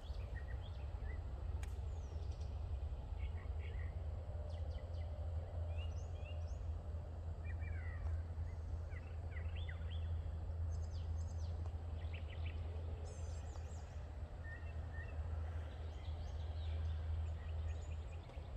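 A steady low rumble with scattered short bird chirps and calls over it, some of them quick rising or falling glides.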